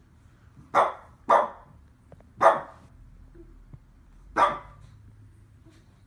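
Shih Tzu giving four short, sharp barks: two in quick succession about a second in, a third a second later, and the last about two seconds after that.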